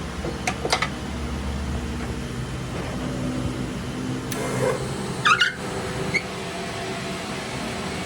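Steady workshop machine hum, with a few sharp clicks under a second in and a short metallic rattle about five seconds in.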